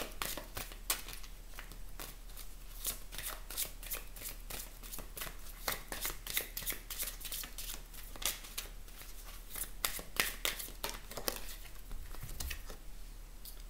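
A deck of oracle cards being shuffled overhand by hand, giving a long run of quick, irregular papery clicks.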